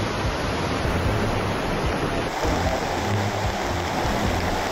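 Beas river in flood: fast, muddy floodwater rushing, a steady loud noise with no break, whose tone shifts slightly a little over two seconds in.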